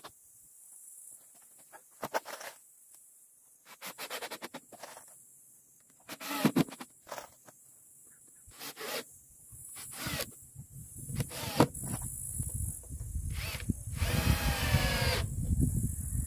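A hammer striking nails into the metal strips on a wooden well lid: short, irregular knocks, growing more frequent in the second half, with a longer grinding sound of about a second near the end.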